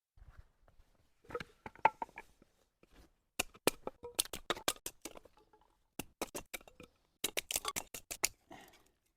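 Gear being handled at close range: a quick run of sharp clicks and light rustles in clusters, with two short pauses.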